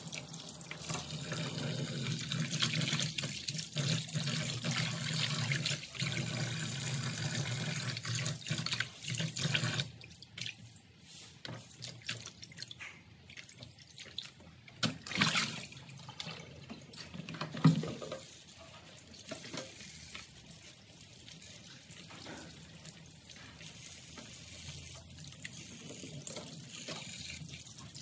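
Kitchen tap running into a plastic bowl in a steel sink for about the first ten seconds, then stopping. After that, hands slosh and splash the water while washing vegetables, with a sharp knock a little past the middle.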